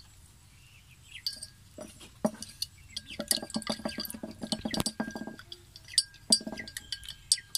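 Teaspoon clinking quickly and irregularly against the sides of a glass cup while stirring powdered milk into hot water, louder and busier about halfway through.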